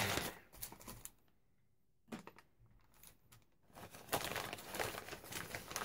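Paper and packaging rustling and crinkling as sheets are handled and pulled out. It fades to near silence about a second in, with only a few faint clicks, and steady rustling comes back about four seconds in.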